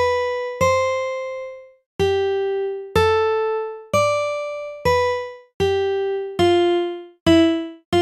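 Single synthesized keyboard notes played one at a time on FL Studio Mobile's on-screen keyboard: a slow melody of about nine notes moving up and down in pitch, each struck sharply and dying away.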